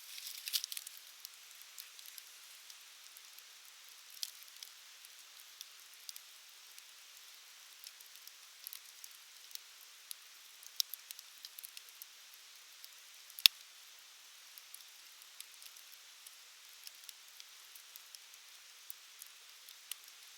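Wood fire crackling: a soft steady hiss with scattered sharp pops and snaps, a small flurry right at the start and one much louder pop about halfway through.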